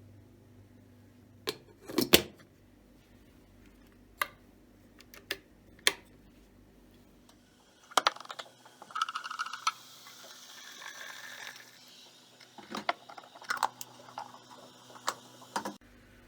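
Small objects being handled by hand: a string of separate clicks, taps and knocks, the sharpest about two seconds in, with a stretch of rustling and scraping in the middle.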